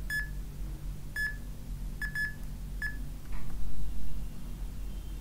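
Film-leader style countdown sound effect: short high beeps about once a second, one of them doubled, over a steady low hum, then a louder falling whoosh a little over three seconds in.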